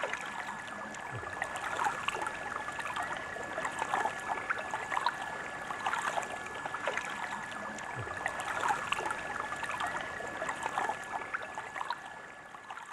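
River water trickling and splashing around a small boat moving through the water, a busy wash of small irregular splashes with a faint steady high tone behind it; it fades out near the end.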